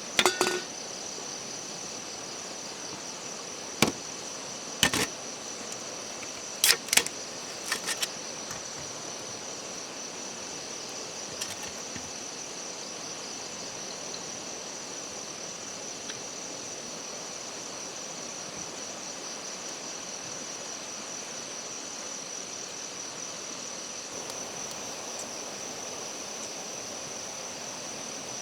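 Steady high-pitched chirring of insects such as crickets or cicadas. In the first eight seconds, six or seven short sharp knocks or clicks stand out above it, the loudest one right at the start.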